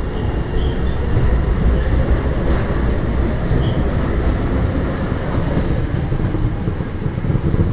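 Hankyu electric train running alongside the station platform, a steady loud rumble of wheels and running gear.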